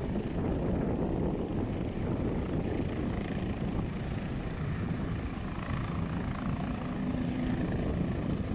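Bell 407 helicopter in a low hover, its four-blade main rotor and turboshaft engine running steadily. A steady hum comes in about six seconds in.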